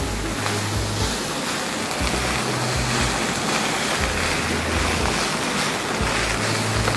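Fried rice sizzling in a hot pan as a spatula stirs and presses it: a steady hiss. Low sustained bass notes sit underneath.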